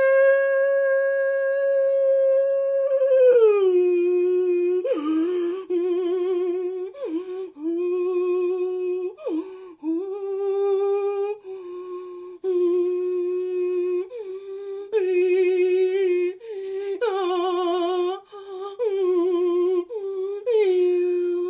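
Solo vocal toning for sound healing: one voice sustains a long note with vibrato and glides down to a lower note about three seconds in. It then holds that lower note in a series of repeated phrases with short breaks for breath.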